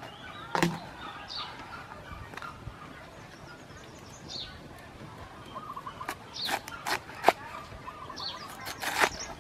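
A meat cleaver chopping through a cabbage onto a wooden chopping board: one sharp chop about half a second in, then a quick run of chops near the end. Birds chirp briefly every few seconds in the background.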